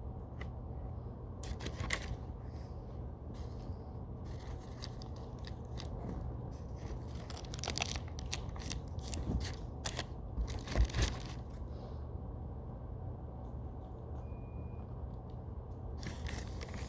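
Scissors snipping into a soft foam squishy toy: a string of small irregular snips and scrapes, with a few louder clicks midway and about two-thirds through.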